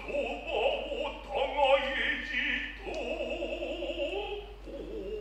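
Noh chanting (utai): a voice sings long, drawn-out syllables with a wavering vibrato. One sharp tap is heard about three seconds in.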